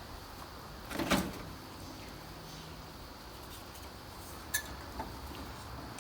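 Work noises from hand tools and parts at the tractor battery: a short scraping clatter about a second in, then a sharp metallic click and a lighter knock near the end.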